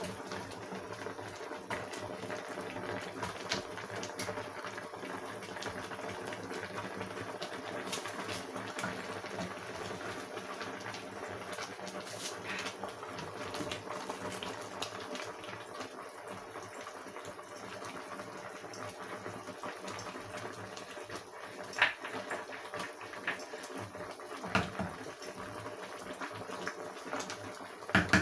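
Pot of meat, chicken and fish boiling steadily on a stovetop. A few sharp knocks of a wooden spoon against the pot come about three-quarters of the way through and at the end.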